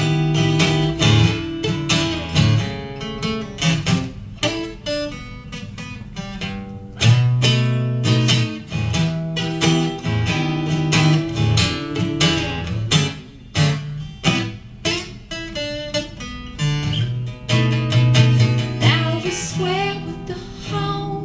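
Acoustic guitar strummed in a steady rhythm with changing chords, and a woman's singing voice coming in near the end.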